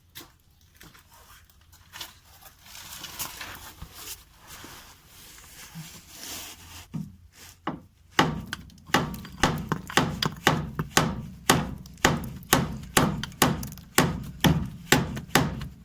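Scattered clanks and scraping of tools on the car's suspension, then, about halfway through, steady hammer blows on metal at about two a second, knocking out the worn anti-roll bar link.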